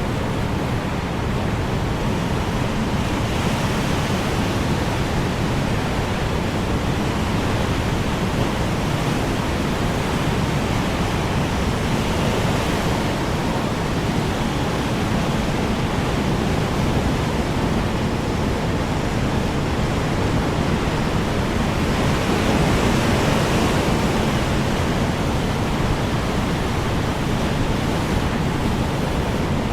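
Strong wind blowing steadily, a dense rushing noise that swells a little three times.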